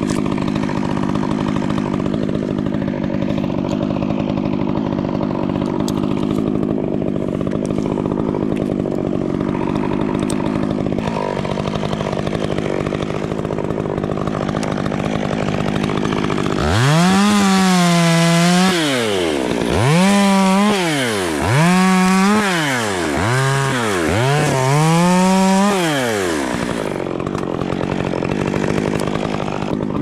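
A steady engine drone runs throughout. About halfway through, a two-stroke chainsaw is revved up to full throttle and let back down five times in quick succession, each rev lasting a second or two.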